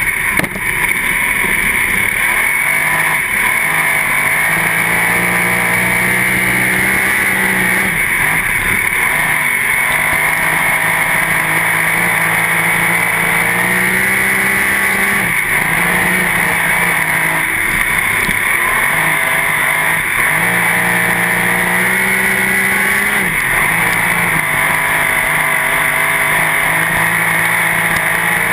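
Two-barrel-carburetted sprint car V8 running hard, heard from inside the open cockpit. The engine note holds steady, then dips briefly and comes back every few seconds.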